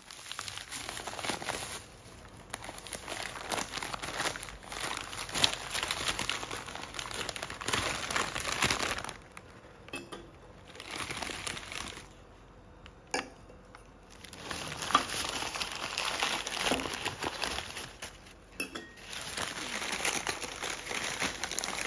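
Newspaper and bubble-wrap packing crinkling and rustling in stretches as crystal stemware is unwrapped by hand, with a few light glass clinks as glasses are set down.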